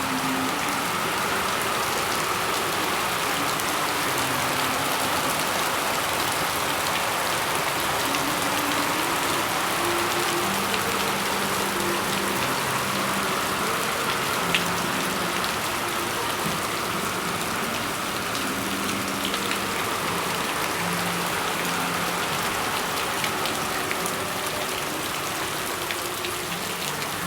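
Steady rain falling on a surface, an even hiss that holds at the same level throughout.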